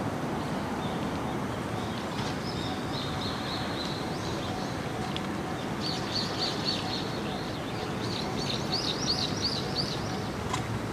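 A small bird chirping in runs of quick, repeated high notes over a steady low background rumble.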